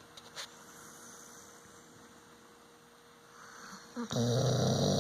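A sleeping dog snoring: a soft breath about three and a half seconds in, then one loud snore about four seconds in that lasts nearly a second. A faint steady electrical hum sits underneath.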